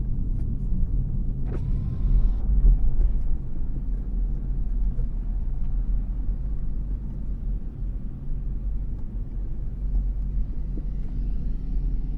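Motorcycle engine running at low speed with a steady low rumble, and a brief hiss about two seconds in.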